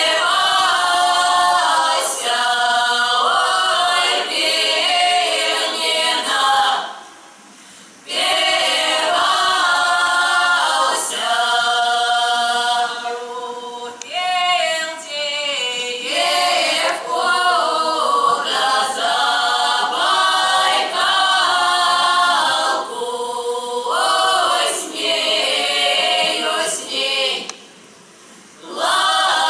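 A folk-song ensemble of women's voices singing a traditional village song a cappella in several parts, in long phrases broken by short breaths about seven seconds in and again near the end. Around the middle, a voice slides down in pitch.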